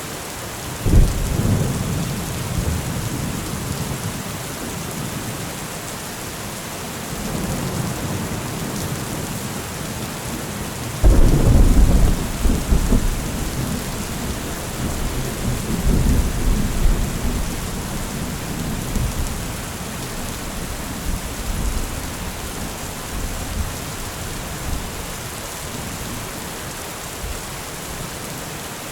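Steady rain with rolling thunder: a sharp crack of thunder about a second in, then a louder one about eleven seconds in that rumbles on and fades over several seconds, with lighter rumbles later.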